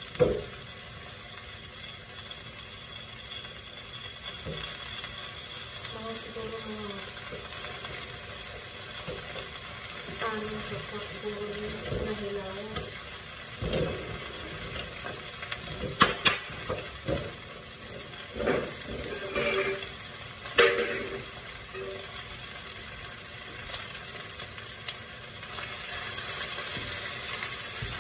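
Steady sizzling of food frying in a pan, broken by several sharp knocks and clatters of utensils and containers being handled, the loudest right at the start and again a little past the middle.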